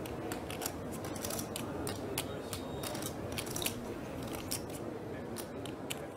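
Poker chips clicking against each other, over and over at an uneven pace, as a player handles them at the table, over a steady low room hum.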